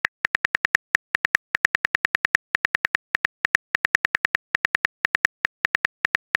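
Phone keyboard typing clicks from a texting-story app as a message is typed letter by letter: short sharp ticks, about eight a second, in quick runs broken by brief gaps.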